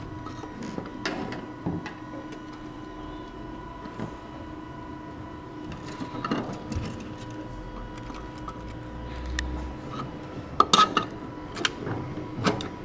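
Plastic clicks and knocks as 3D-printed plastic lamp parts are handled and fitted together by hand, with a few sharper knocks near the end, over a steady hum.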